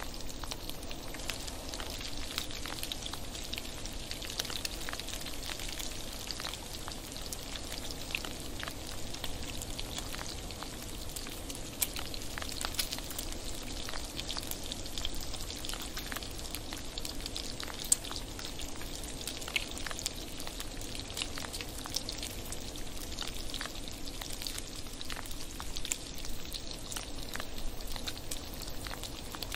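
Bacon sizzling in a frying pan: a steady hiss dotted with many small sharp pops and crackles.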